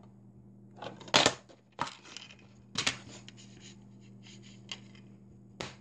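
Plastic DVD case being opened and handled: a handful of sharp clicks and snaps with softer scraping and rustling between them.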